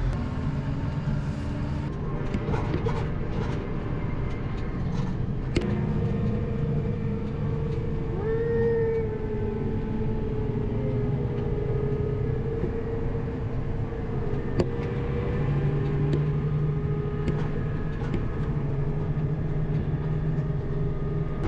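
Tractor engine running steadily at the grain bin while a wagonload of wheat is unloaded, with a machine whine that wavers a little in pitch about eight seconds in and a few faint clicks.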